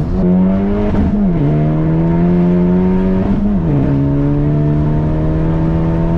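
Honda Civic Type R FK8's turbocharged 2.0-litre four-cylinder, with a catless straight-pipe downpipe, accelerating at full throttle through the upper gears. Its pitch climbs steadily and drops sharply at upshifts about a second in and again past halfway.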